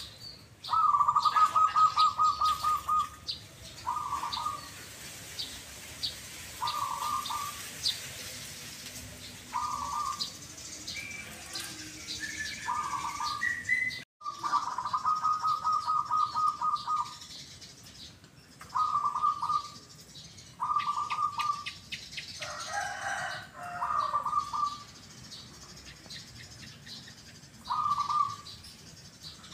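Caged zebra doves (perkutut) cooing in pulsed, rolling phrases: a long trill about a second in and another around the middle, with short repeated coo phrases every couple of seconds between them. Faint higher chirping runs in the background.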